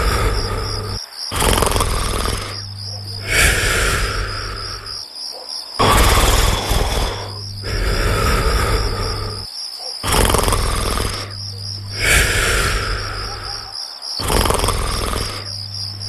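Snoring in slow, regular breaths about every two seconds, over steady chirping crickets.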